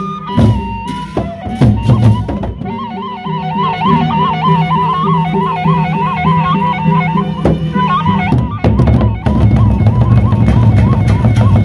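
Sasak gendang beleq ensemble playing: large double-headed barrel drums struck with beaters, along with cymbals. A wavering, quickly repeating wind-instrument melody sounds over the drums in the middle, and the drumming turns dense and steady near the end.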